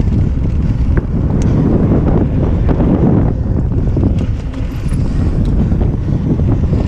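Wind buffeting the microphone of a camera riding on a mountain bike going down a dirt trail, a heavy steady rush with many short knocks and rattles from the bike over the rough ground.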